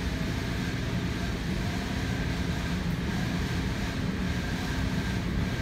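Large coin-laundry tumble dryer running, its drum turning over a load of thick comforters: a steady mechanical rumble with a low hum.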